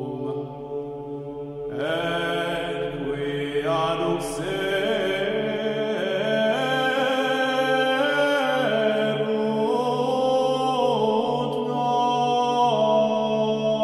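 Gregorian chant, an offertory in the first mode: a steady held low note sounds throughout, and about two seconds in a solo voice enters, singing a long flowing melisma that rises and falls over it.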